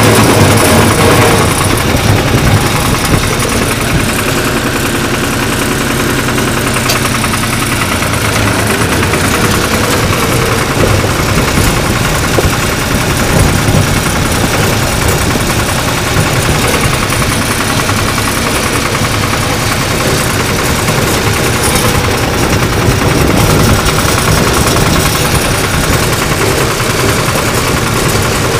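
Diesel engine of a 1974 Long 350 farm tractor running steadily while being driven, with its note shifting during the first eight seconds.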